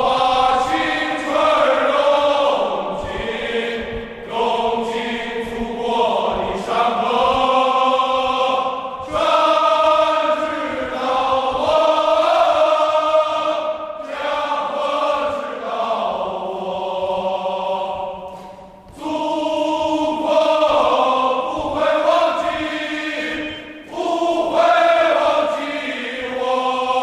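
Slow singing in long, held notes, each phrase lingering in heavy reverberation so that the notes overlap one another. The singing pauses briefly a few times and starts again.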